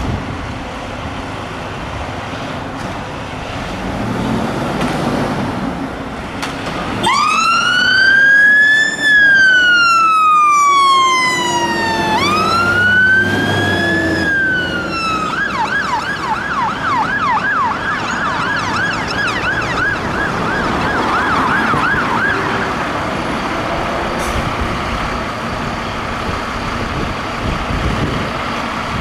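Dennis Sabre fire engine's electronic siren switched on about seven seconds in: two slow wails rising and falling, then a fast yelp of about three sweeps a second for some seven seconds, which cuts off, leaving the truck's diesel engine running.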